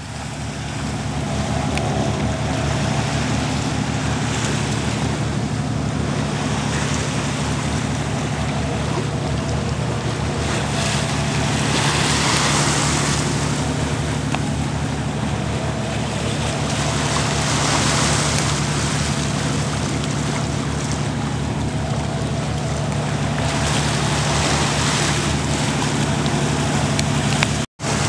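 Sea water rushing and splashing along the hull of a schooner under way, with wind on the microphone, swelling louder about twelve and again about eighteen seconds in, over a steady low hum. It cuts out briefly near the end.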